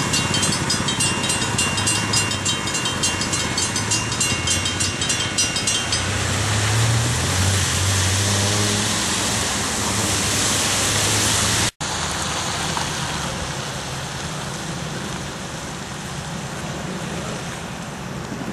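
Railway crossing bell ringing with rapid even strikes over the running engines of track speeders; the bell stops about six seconds in. A speeder's engine then rises and falls in pitch as it passes, until an abrupt cut, after which a steadier engine noise slowly fades.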